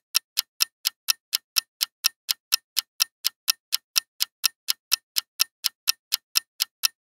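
Quiz countdown-timer sound effect: a clock ticking steadily at about four ticks a second.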